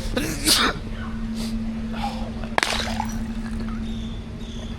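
A drinking glass falling and shattering on a hard surface: a sharp crash about half a second in, then a single sharp clink about two and a half seconds later.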